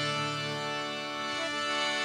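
Harmonium holding a steady sustained chord, its reeds sounding without voice.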